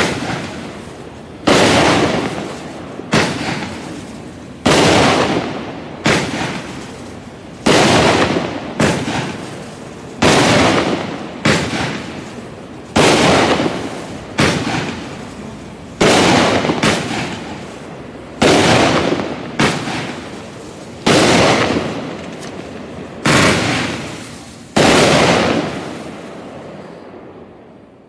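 Fox Fireworks 'Mythical Creature' consumer fireworks cake firing: a steady series of about eighteen loud bangs, one every second and a half or so, each dying away over about a second. The last bang comes about 25 s in and fades out by the end.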